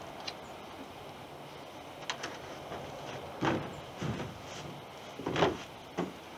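Hollow knocks and thuds of a 16-foot Prospector canoe being swung up overhead and set back down on grass over and over, the hull and gunwales bumping as it is handled. There are about five separate thumps, the loudest about five seconds in.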